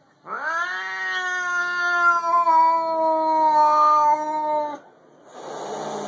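A cat giving one long, drawn-out yowl that slowly falls in pitch, then a short hiss near the end: the warning sounds of a cat squaring up to another cat.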